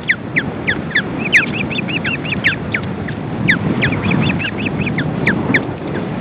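Ospreys calling: repeated high whistled chirps, each slurring downward, with quicker runs of chirps about a second in and around four seconds in, over a low rumble of wind on the microphone.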